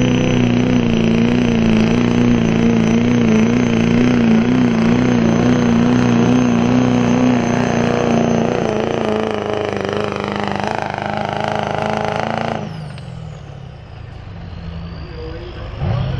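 Diesel pickup truck pulling a sled, its engine held hard at high revs with a high turbo whine over it. About 12 seconds in the engine lets off, and the whine winds down as the pull ends.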